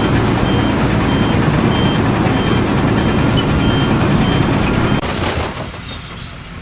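Heavy construction vehicle running with a deep engine rumble while its reversing alarm beeps at a steady pace, about twice a second. About five seconds in, a short burst of hiss, and the engine noise then fades.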